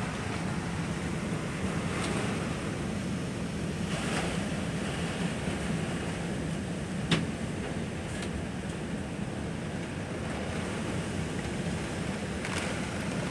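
Strong hurricane wind rushing steadily, swelling in gusts every few seconds, with a single sharp click about seven seconds in.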